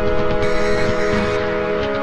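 Background music with sustained synth chords over a dense low beat.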